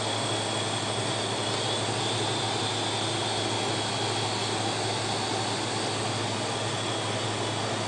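Old hard drive running with its lid off inside a Macintosh LC475: a steady whir with a thin high whine as the exposed platter spins after a hand nudge. This try does not get the drive working.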